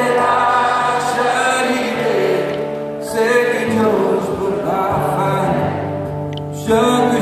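A man singing a Cajun French song live, accompanying himself on acoustic guitar, in three long phrases with held notes.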